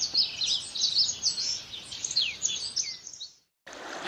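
Small birds chirping and twittering in quick, high notes, many of them falling in pitch, which cut off abruptly about three and a half seconds in. After a short gap a steady rushing noise begins just before the end.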